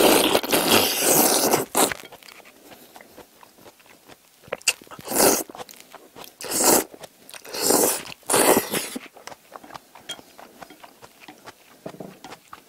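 Spaghetti in tomato sauce being slurped up with chopsticks, close to a clip-on microphone: one long slurp at the start, then four shorter slurps a few seconds later, with small wet mouth clicks of chewing between them.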